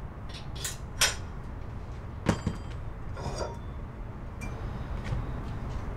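Metal hitch hardware handled at a trailer hitch receiver: a few sharp metallic clinks and knocks. The loudest comes about two seconds in and rings briefly.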